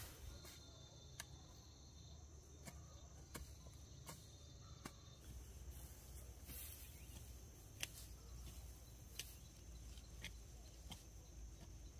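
Faint, steady high-pitched trill of insects, crickets, with a few scattered faint clicks.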